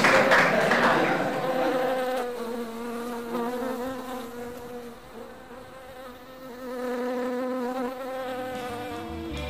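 Applause fading out over the first second or two, then honeybees buzzing close up in a steady, slightly wavering drone.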